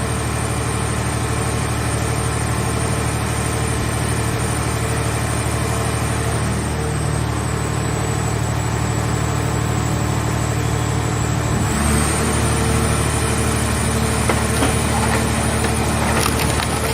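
Hydraulic car baler's power unit running steadily, engine drone with a thin high whine; about twelve seconds in its note shifts and it runs a little louder, and near the end scattered cracks and clicks come through.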